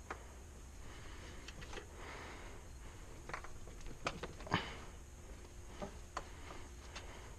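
Scattered light clicks and knocks at an uneven pace, the loudest about four and a half seconds in.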